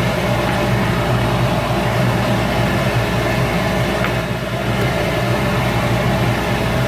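Shop Fox W1836 midi wood lathe running steadily, its motor giving a constant hum.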